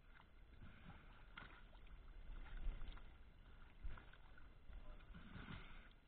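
Quiet lapping and splashing of sea water around divers at the side of an inflatable dinghy, with a few sharp knocks as dive gear is handed up into the boat.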